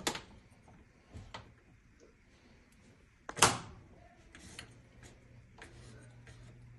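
A sharp knock about three and a half seconds in, the loudest sound, with a click at the start and a lighter click between; a faint low hum comes in during the second half.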